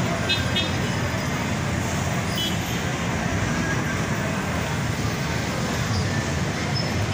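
Steady noise of heavy, congested street traffic: a jam of jeepneys, tricycles, motorcycles and cars idling and creeping along.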